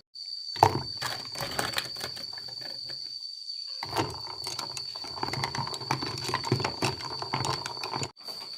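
A steady high-pitched insect drone, with dense rapid clicking and scraping over it; everything drops out briefly twice, just after the start and near the end.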